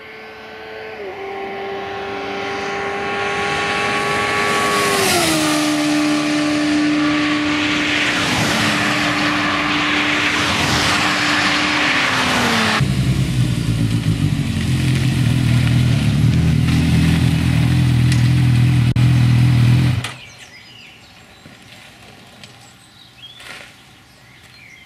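Road vehicles passing at speed: a loud engine note that grows louder and steps down in pitch several times. About 13 seconds in it changes abruptly to a deep, steady engine drone, which cuts off about 20 seconds in, leaving quiet outdoor ambience.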